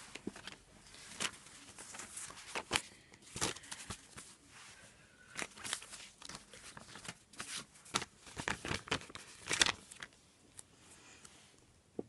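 Paper sticker sheets and planner pages rustling and crinkling as stickers are peeled and pressed down, a string of short crackles that thins out near the end.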